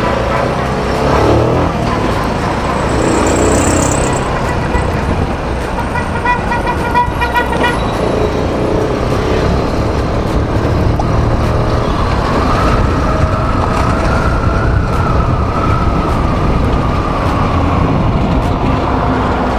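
Bajaj motorcycle engine running while riding in city traffic, with wind and road noise. About six seconds in, a vehicle horn sounds in a quick series of short beeps for about two seconds. Later a whine rises and then falls away.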